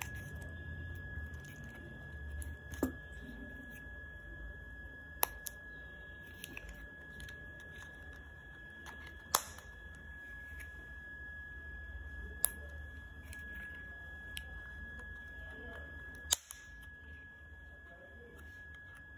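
A steady high-pitched whine with a low hum beneath it runs throughout, with faint rustling and about five sharp clicks as card and hair clips are handled for crafting.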